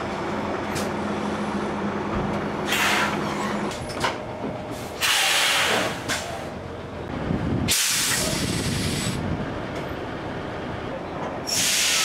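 Semi-trailer air brakes venting as the parking brake is released: a series of sharp hisses of escaping air, each about a second long, the loudest about five seconds in. A steady low hum sits underneath for the first few seconds.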